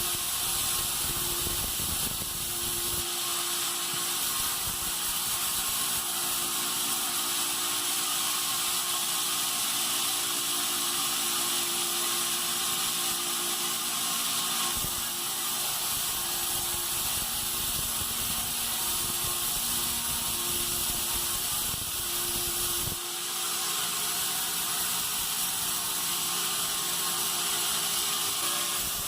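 Bandsaw mill sawing pine, running steadily with a constant high hiss over a steady hum.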